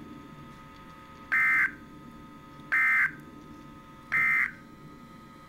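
EAS digital data bursts on NOAA Weather Radio: three short buzzing squawks of the SAME end-of-message code, each about a third of a second long and about a second and a half apart, over faint radio hiss. They signal the end of the alert.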